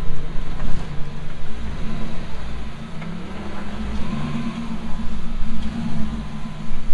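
Off-road rock crawler's engine running steadily at low revs, its pitch rising a little about four seconds in.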